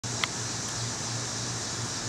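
Steady rushing noise like wind or surf, with a low hum that comes and goes and one brief high chirp about a quarter of a second in.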